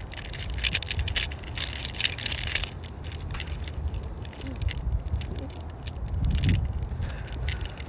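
Keys jingling and clinking with each walking step, busiest for the first couple of seconds and sparser after, over a low steady rumble.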